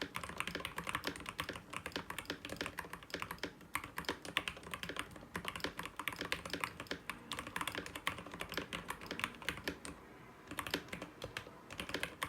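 Typing on a SteelSeries Apex Pro keyboard with lubed switches: a fast, continuous stream of keystrokes, with a short pause about ten seconds in.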